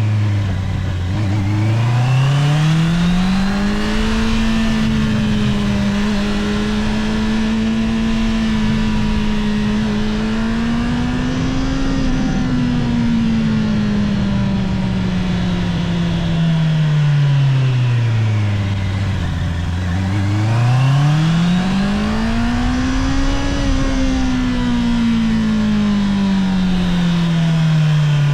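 Honda CBR650R's inline-four engine on its stock exhaust, under way. The revs dip low about a second in, climb and hold steady, then fall slowly. They climb again about two-thirds of the way through and ease off toward the end.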